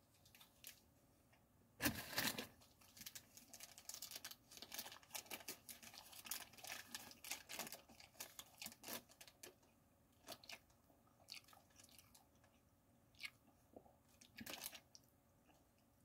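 Paper wrapper of a fast-food wrap being unwrapped by hand: crinkling, rustling and tearing, loudest in a burst about two seconds in, dense crackling for several seconds after, then sparser crackles and another short burst near the end.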